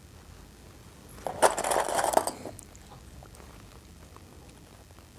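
Hoodie fabric and zipper tape handled: a brief crinkly rustle with a few sharp clicks, lasting about a second and a half.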